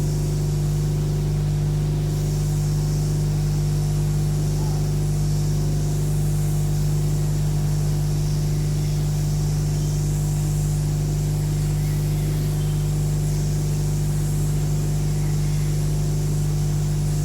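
Hot air rework gun blowing steadily while it desolders a phone's charging jack, a constant hiss over a strong electrical hum.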